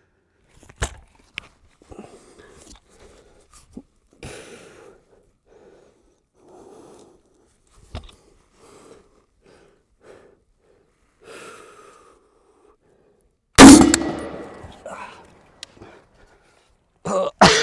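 ADM UIC-10A .308 battle rifle fired a few times at steel, the loudest shot near the end followed by a ringing clang; between shots the shooter breathes hard in regular, quick breaths.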